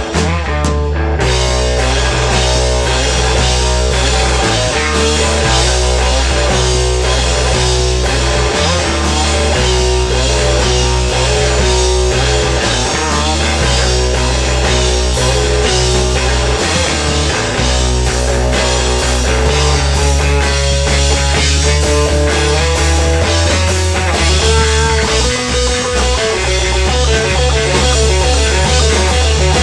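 Rock band playing live: a busy guitar melody over steady, shifting bass notes and drums.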